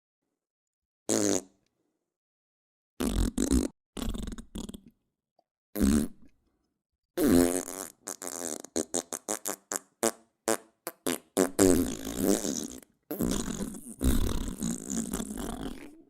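A series of farts. A few short separate ones come first, then a long sputtering run of rapid pulses, several a second, and at the end one long drawn-out fart.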